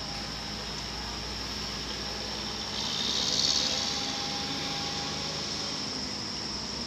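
Steady hiss and low rumble of a three-phase MEMU electric train approaching from a distance, with a brief hissing swell about three seconds in.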